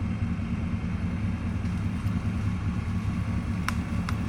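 Tractor engine running steadily with a low rumble, with a couple of sharp clicks near the end.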